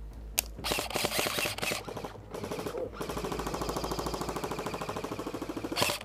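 Airsoft electric rifle firing on full auto as a rapid rattle: a single shot, a short burst about half a second in, then one long, even burst of about three and a half seconds starting about two seconds in, and another burst at the very end.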